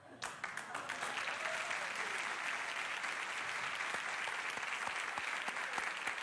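Studio audience applauding steadily, a dense patter of many hands clapping that starts right at the beginning.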